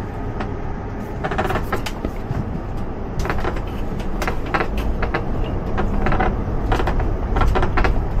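Steady low rumble of a tour vehicle driving, heard from inside the cabin, with faint voices.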